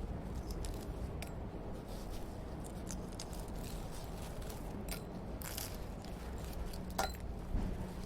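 Breakfast-table ambience: a steady low background hum with scattered small clicks of dishes and cutlery. About seven seconds in comes a brighter clink of glass or crockery with a short ring.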